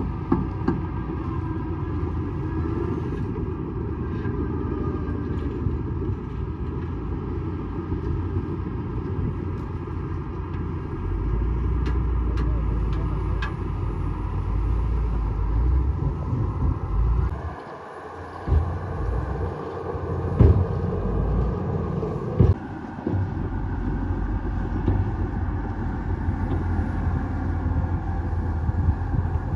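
Bulldozer's diesel engine running steadily, growing heavier partway through, with a few sharp metallic knocks past the middle.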